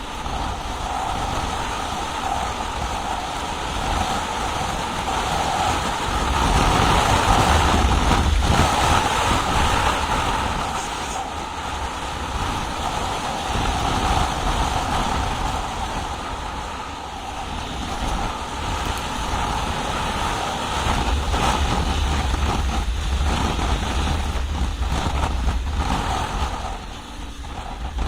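Yamaha Ténéré 700 motorcycle's parallel-twin engine running under way off-road, mixed with wind rushing over the microphone. The engine swells louder about six seconds in and again past the twenty-second mark, then eases off briefly near the end.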